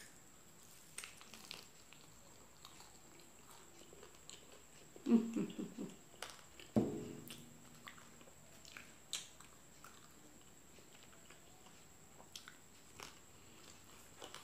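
Faint, close-miked chewing and small wet mouth clicks of someone eating fried chicken and rice by hand. There are two brief voiced murmurs, about five and seven seconds in.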